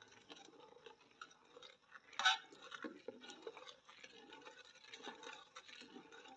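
Metal ladle stirring and scraping in a large aluminium pot of hot milk: irregular small clicks and scrapes, with one louder clatter about two seconds in.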